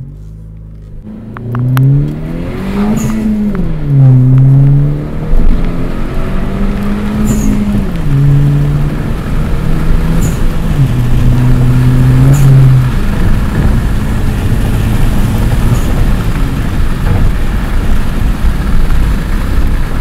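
Honda Civic Hatchback Sport's 1.5-litre turbocharged four-cylinder pulling through the gears, heard from inside the cabin. The engine note climbs, drops at each upshift and climbs again, three or four times, then settles into a steady cruise with road noise for the second half.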